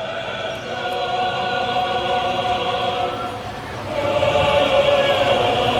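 Dramatic choral music: voices holding long sustained chords, swelling louder about four seconds in.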